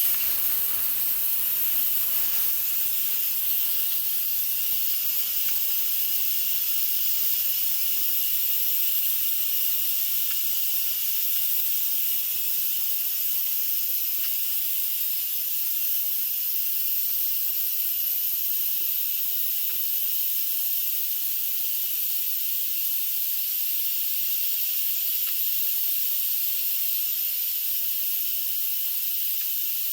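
Instant Pot electric pressure cooker venting steam through its release valve: a steady, high hiss with no change in level. This is a manual pressure release after cooking, and the lid stays locked until all the steam is out.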